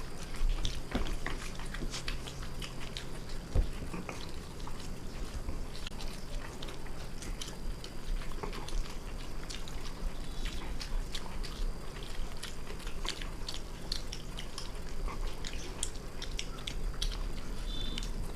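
Two people eating chicken biryani fast, with chewing and mouth noises and many scattered small clicks and taps of the food and plates, over a steady low hum.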